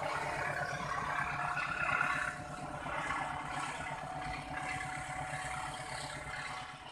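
Diesel-electric locomotive engine running steadily, a low hum with a rattling, whirring upper band, starting to fade near the end.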